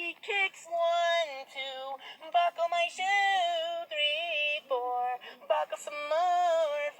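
High-pitched, synthetic-sounding voice singing a chanted counting rhyme in short phrases with brief gaps.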